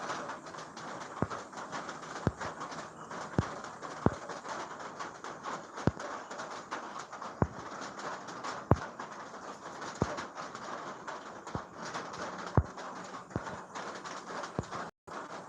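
Steady rainfall, with single sharp drips striking a hard surface every second or so.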